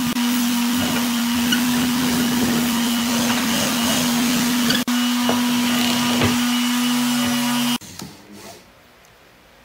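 Electric motor of a shop machine running steadily with a whirring hum, cutting off abruptly near the end.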